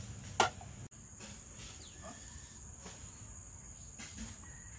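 A single sharp clink about half a second in, then a steady high-pitched insect drone, as of crickets or cicadas, over faint rural background.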